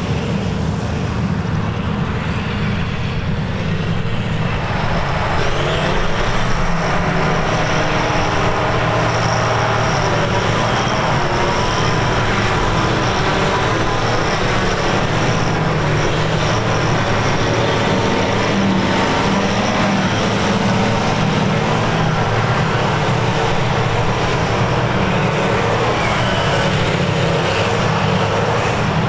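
John Deere 6950 self-propelled forage harvester working under load as it chops grass for silage: a steady, heavy engine drone with a faint high whine over it, mixed with the tractor running alongside.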